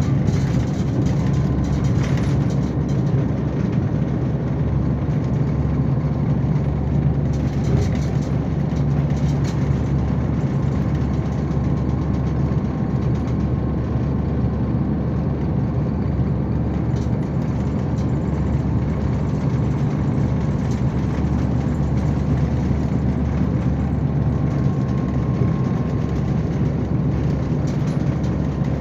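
Steady low drone of a Neoplan Starliner coach's MAN D2066 LOH07 turbo-diesel engine and running gear, heard from inside the cabin, with faint rattles of loose interior parts now and then.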